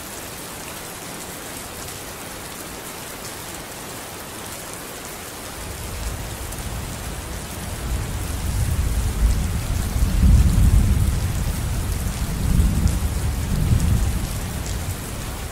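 Steady hiss of monsoon rain falling, with fine crackles of drops. About six seconds in, a rough low rumble rises, swelling unevenly and loudest near the middle and again near the end.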